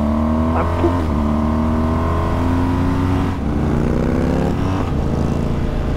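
BMW R 1250 GS boxer-twin engine through a Jekill & Hyde Nomad exhaust with its valve fully open (Hyde mode), accelerating: the note rises, drops at an upshift a little over three seconds in, rises again and drops at a second shift near the end.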